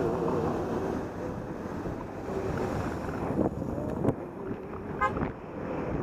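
Wind rushing over a helmet camera's microphone with the noise of road traffic while cycling. A short car-horn toot sounds about five seconds in.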